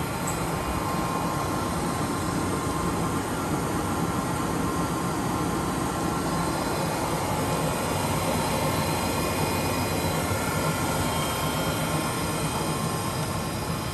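Toshiba Shibaura TX-16 vertical boring mill running with its 63-inch table spinning under power: a steady mechanical running noise with a faint steady whine.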